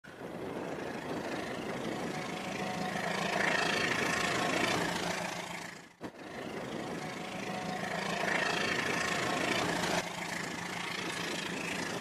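Battery-powered toy train running on plastic track: a small electric motor whirs and the wheels rattle. The sound swells and eases twice, with a brief break about halfway through.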